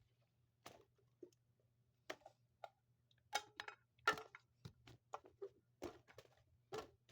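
Irregular light clicks and knocks of small toys being handled, about a dozen over several seconds, over a faint steady low hum.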